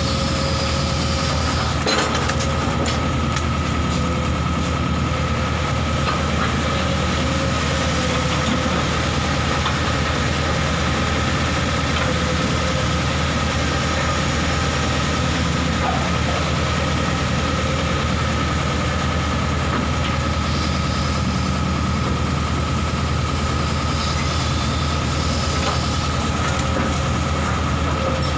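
Excavator's diesel engine running steadily, with a steady high whine above its low drone.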